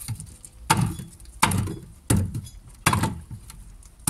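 Machete chopping raw chicken on a wooden board, a heavy chop about every three-quarters of a second.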